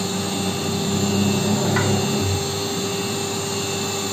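A workshop motor running steadily: a constant hum and hiss with no change in pitch, with some low rubbing or handling noise in the first couple of seconds.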